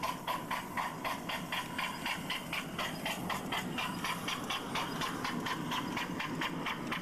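Miniature live-steam locomotive chuffing under way, its exhaust beats quickening from about four to about six a second as it gathers speed, over the low rumble of wheels on the rails.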